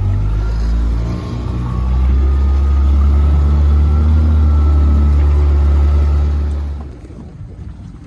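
Small outboard kicker motor running steadily, with a dip in its pitch about a second in before it settles again. The motor sound drops away sharply about seven seconds in.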